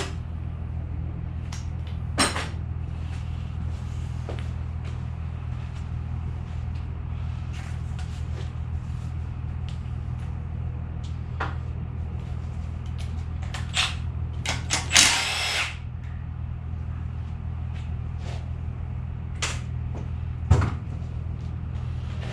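Tools clicking and knocking against engine parts during assembly, over a steady low hum. About fifteen seconds in comes a short burst from a power tool.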